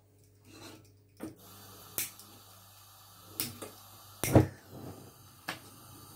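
A frying pan being handled and set on a gas hob: a few sharp clicks and knocks about a second apart, the loudest a metal clunk just after four seconds in. A faint steady hiss runs underneath from about a second in.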